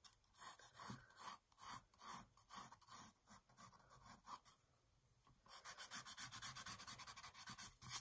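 Pencil sketching on sketchbook paper: short scratchy strokes about twice a second, a brief pause past the middle, then a faster run of quick strokes over the last couple of seconds.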